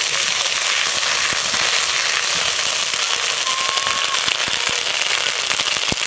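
Ginger paste frying in hot oil in a kadai, sizzling and crackling steadily, with a few light knocks.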